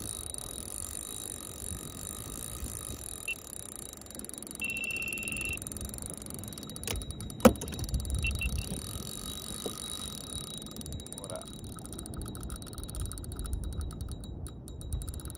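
Spinning reel clicking as a hooked fish is played from a kayak, the clicks coming fast and dense near the end, over low water and wind rumble. A short steady beep sounds about five seconds in, and a sharp knock, the loudest sound, comes about seven and a half seconds in.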